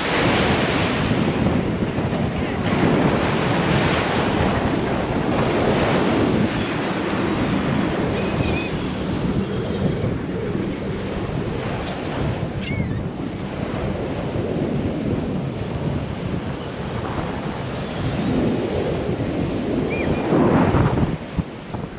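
Sea surf breaking and washing on the shore, swelling and easing several times, with wind buffeting the microphone.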